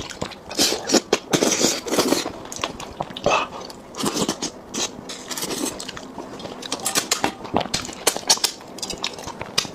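Close-miked eating: chewing and biting, with many short, irregular crackling clicks.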